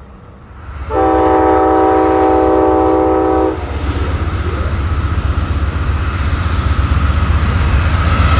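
Amtrak GE P42DC diesel locomotive's horn sounding one steady multi-tone chord for about two and a half seconds, starting about a second in. After it comes the low rumble of the approaching diesel locomotives, growing louder.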